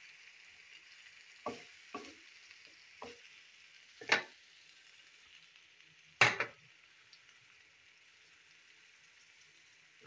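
Fish pieces frying in a thick masala in a pan, with a faint steady sizzle. A spoon scrapes and knocks against the pan five times in the first seven seconds, the loudest knock about six seconds in.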